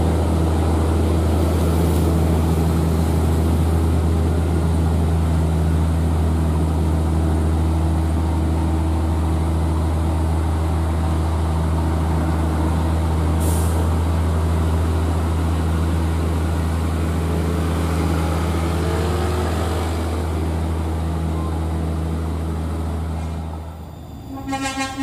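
Diesel engine of a Scania P380 heavy tractor unit pulling a crane-laden lowbed trailer slowly uphill, a steady loud drone with no change in pitch. There is a short hiss of air about halfway through. Near the end the engine sound drops away abruptly.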